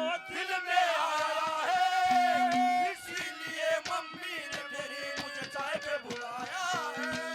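Instrumental accompaniment of a Haryanvi ragni: a wavering melodic line over a held drone note and a steady drum beat.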